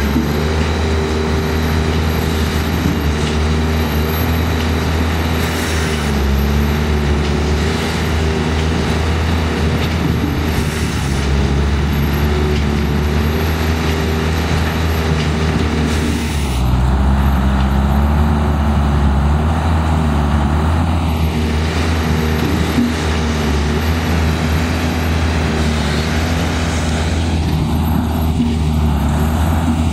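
Engines of several motorised machines running and working together, their engine notes shifting up and down.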